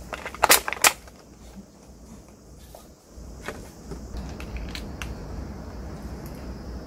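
Clear plastic takeout food tray's lid crackling sharply twice as it is pried open, followed by a few lighter plastic clicks and crinkles as the tray and a sauce packet are handled.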